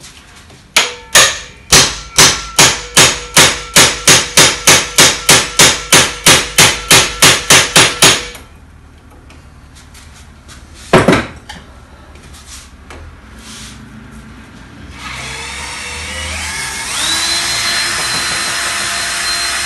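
A hammer striking a hand impact driver about twenty times in quick, even succession, each blow ringing, to shock loose a seized cross-head screw; one more heavy blow follows a few seconds later. Then an electric drill runs, speeding up about two seconds after it starts.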